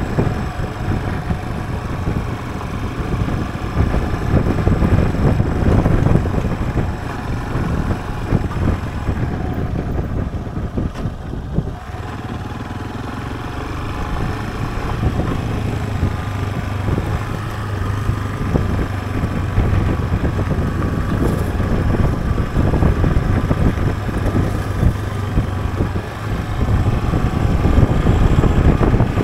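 Yamaha Serow trail bike's single-cylinder engine running while riding, easing off for a moment about ten seconds in, then pulling steadily again.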